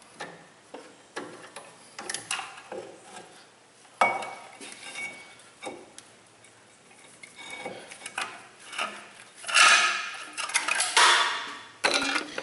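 Metal clinks, knocks and scrapes as a brake caliper is handled and moved over the rotor, with a sharp knock about four seconds in and a burst of scraping and clattering near the end.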